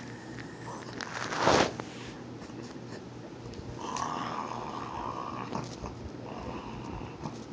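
Pug growling low and steadily as a warning while guarding its chew bone, with one sharp, louder snarl about a second and a half in and a higher whining note a few seconds later.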